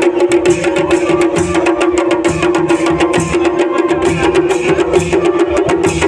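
Garhwali folk drumming: dhol and damau drums struck in a fast, driving rhythm, with brass cymbals (jhaar) clashing, over a steady held drone note.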